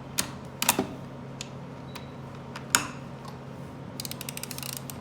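A few sharp knocks, then near the end a fast, even run of clicks from a 3/8-inch Pittsburgh ratchet's pawl as the ratchet is turned.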